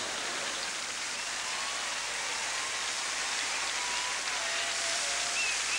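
Shower heads spraying water, a steady hiss of running water.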